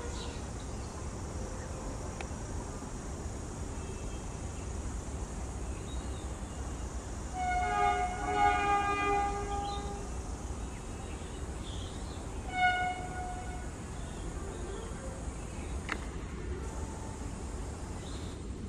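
Multi-tone air horn of an approaching Vande Bharat Express trainset: one long blast about halfway through, then a short one a few seconds later, over a steady low rumble.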